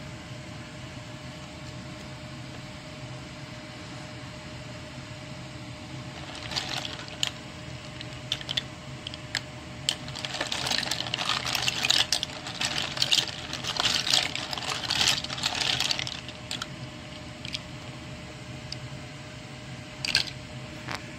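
Clam shells clicking and clattering against one another as a hand stirs and rubs them in a plastic tub of water to wash them, in dense bursts through the middle and once more near the end. A steady low hum runs underneath.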